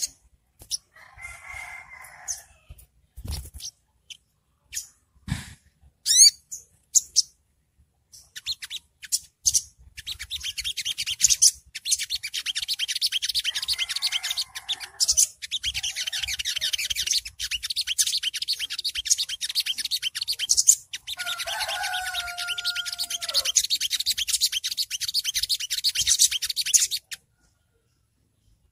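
Olive-backed sunbird (sogok ontong) calling: a few scattered high chirps, then from about ten seconds in a long, very fast, high twittering trill, the 'ngriwik' call, with a short break midway. A lower drawn-out call sounds under the trill for a couple of seconds, and everything stops shortly before the end.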